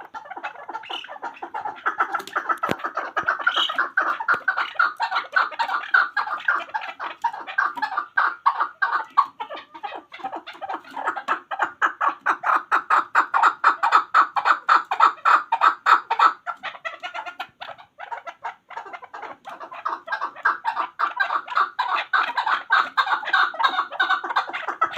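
Chukar partridge calling: a long, fast run of repeated clucking notes, with a short lull about two-thirds of the way through before the calling picks up again.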